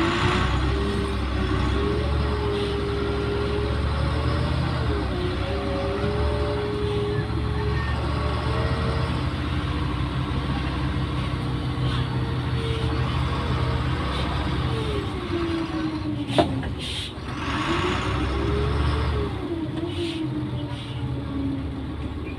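Güleryüz Cobra GD-272 city bus running, its engine and drivetrain whine rising and falling as it speeds up and slows down over a steady rumble. About two-thirds of the way through, a sharp click comes as the whine drops, followed by a short burst of hiss, and then the whine climbs again.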